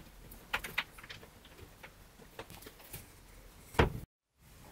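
A few light clicks and taps of handling on the wardrobe, then a melamine-faced wardrobe door shutting with a single sharp knock near the end.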